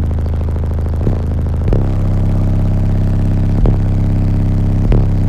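Single Skar ZvX 18-inch subwoofer in a ported box, driven by an Audiopipe 1800 amp, playing deep sustained bass notes at high volume, heard inside the truck cab. The notes step to a new pitch about two seconds in, and a few sharp clicks are heard every second or two.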